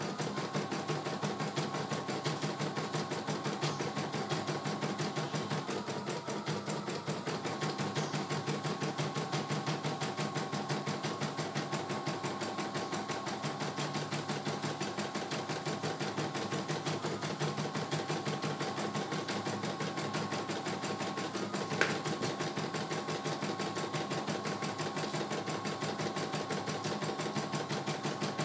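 CNY E900 computerized embroidery machine stitching a design: a fast, even needle rhythm over the steady hum of its motor. A single sharp click about three-quarters of the way through.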